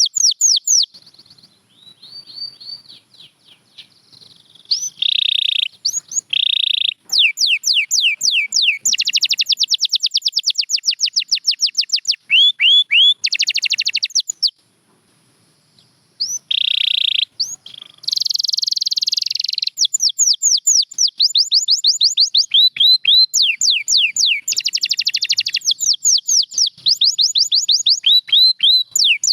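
Canary singing: fast trills made of quickly repeated falling whistled notes, alternating with buzzy rolling passages. The song stops for a short break about halfway through, then carries on.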